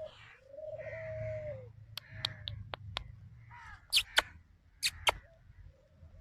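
Birds calling in an aviary: one long call held at a steady pitch early on, then shorter calls mixed with several sharp clicks.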